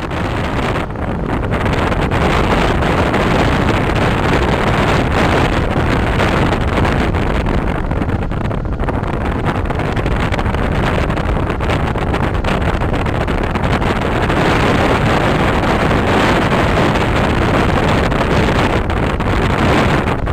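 Strong wind buffeting the camera's microphone: a loud, steady rumble with no let-up.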